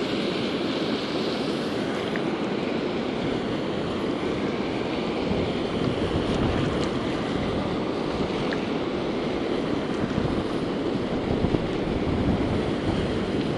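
Steady rush of water pouring over a concrete spillway and churning in the pool below, with wind noise on the microphone.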